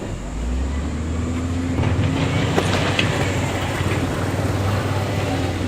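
Heavy diesel earthmoving machine's engine running under load, a steady low drone that grows louder about two seconds in. A few sharp knocks and clatter come in the middle, as of stone or steel striking.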